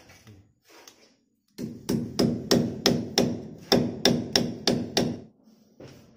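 Hammer striking in a quick run of about a dozen blows, around three a second, starting about a second and a half in and stopping about five seconds in; each blow has a short ring.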